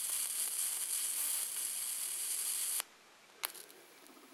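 Round flip-top dual-arc plasma lighter firing its cross-shaped electric arc: a steady high buzzing hiss that cuts off suddenly after almost three seconds, followed about half a second later by a sharp click. The lighter is working, not empty.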